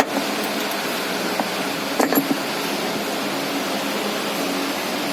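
Steady, fan-like background hiss, with a brief clatter of handled parts about two seconds in.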